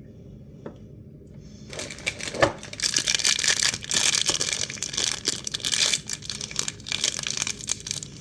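Plastic packaging being torn open and crinkled by hand: a dense crackling rustle with many small clicks that starts about two seconds in and goes on for several seconds.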